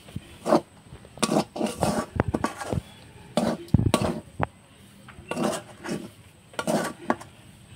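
Metal utensil scraping and knocking against a metal karahi while boiled mung dal is stirred and cooked down drier. The strokes are short and irregular, about one or two a second.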